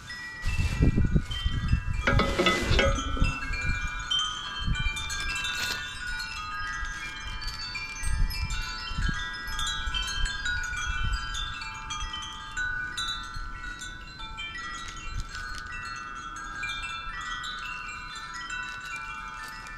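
Wind chimes ringing continuously in many overlapping, scattered metal tones. In the first three seconds, louder knocks and a brief rustle come from roof-rack crossbar parts being handled, with a few softer knocks about eight seconds in.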